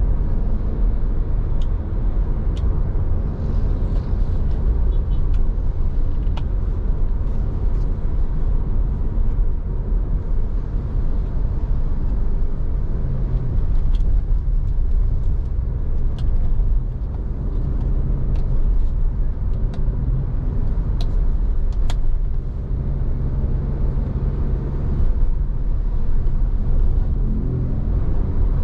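Road traffic: a steady rumble of vehicle engines and tyres.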